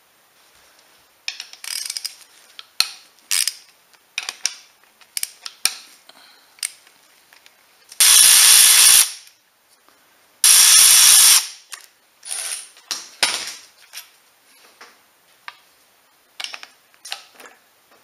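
Ratchet and hand tools clicking and clanking on the bolts of a Ford Duratec 2.3 four-cylinder engine's timing chain. Two loud bursts of about a second each come about a third of the way in, one after the other, and stand out above the clicking.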